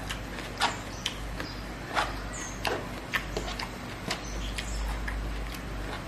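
Close-miked chewing and lip smacking from a mouth full of rice and rendang, with short wet mouth clicks coming irregularly, about one or two a second.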